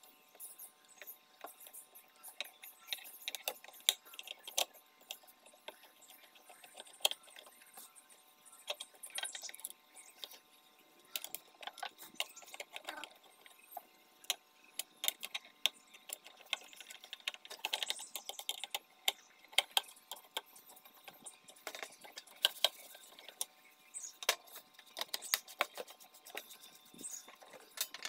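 Irregular light clicks and taps of hands handling the plastic casing of an electronic weighing scale: working a clip at the battery compartment, pressing on the base and turning the scale over.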